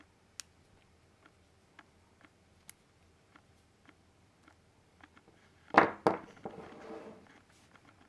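Faint metal clicks as the parts of a vape mod's button assembly are handled with pliers. About six seconds in comes a loud double knock of metal on a wooden bench, then a short clattering rattle.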